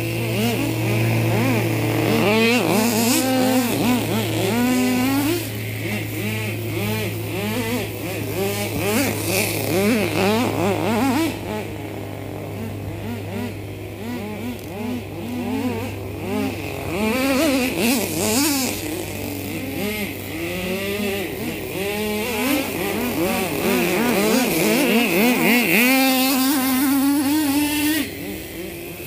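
Nitro RC monster truck's small two-stroke glow engine revving up and down over and over as it is driven around, a buzzy whine that rises and falls every second or so.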